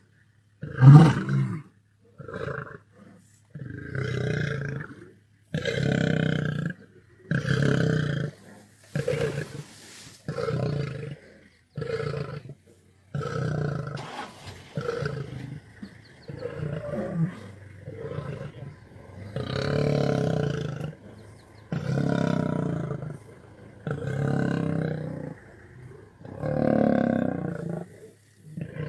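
Male East African lion roaring in a long bout of repeated calls, each about a second long and one every one to two seconds. The loudest call comes about a second in.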